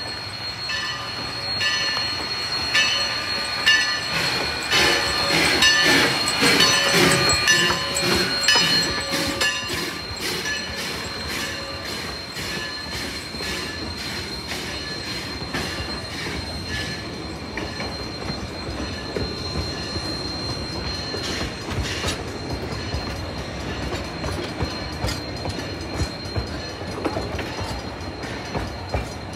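Steam train No. 152 pulling slowly past. The locomotive passes with rhythmic beats, loudest in the first ten seconds, then the coaches roll by with a steadier rumble. A steady high wheel squeal runs under it all.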